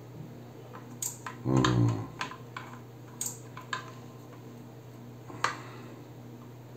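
Light clicks and taps of fan wire leads and connectors being handled and pressed together while testing a small LED-light cooling fan, which stays still: the fan is dead. A steady low electrical hum runs underneath, and a brief louder low sound comes about one and a half seconds in.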